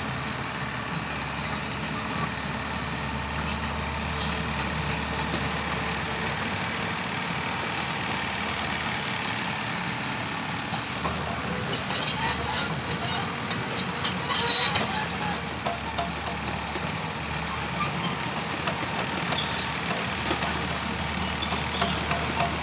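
Excavator's diesel engine running steadily as the machine works, with scattered clanks and knocks throughout, loudest about two-thirds of the way in.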